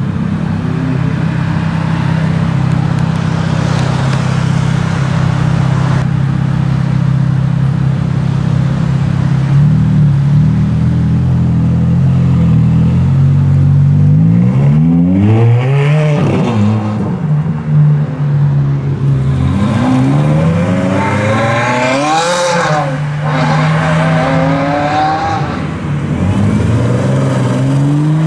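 Ferrari 430 Scuderia's V8 running at a steady low idle, then revved up and down several times, the highest and loudest rev about two-thirds of the way through, before it settles back to a steady run.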